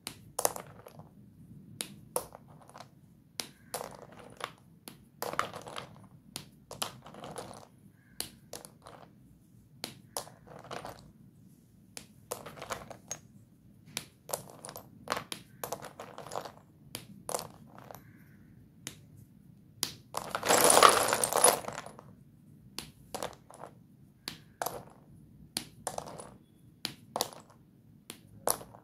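Doms white dustless chalk sticks clicking, snapping and crunching as hands grab and break them in a plastic basin: a string of separate sharp cracks and clacks, with one louder, denser crunching rattle lasting about a second and a half about two-thirds of the way in.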